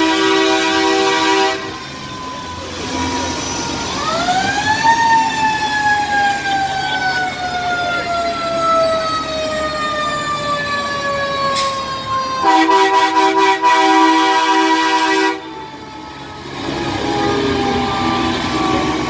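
A multi-tone truck air horn sounding, then a fire engine siren winding up once and slowly winding down, with another long air horn blast near the end of the wind-down.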